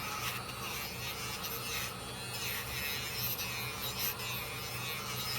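Small wire brush scrubbing the steel blade of a pocketknife: a steady, scratchy rubbing that swells slightly with the strokes.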